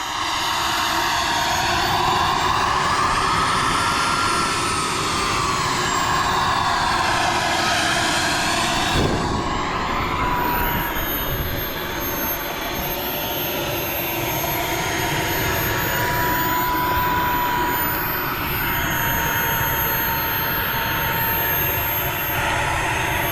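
Turbine engine of an RC L-39 Albatross model jet running with a steady whine over a roar, its pitch slowly rising and falling.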